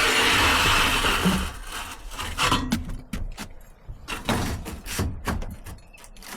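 A loud rush of noise for about two seconds, then scattered knocks and scrapes.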